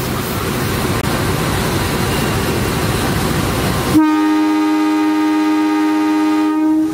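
A train running, with a dense rumble of wheel and track noise. About four seconds in, the background noise drops away suddenly and a train horn sounds one long, steady note for about three seconds.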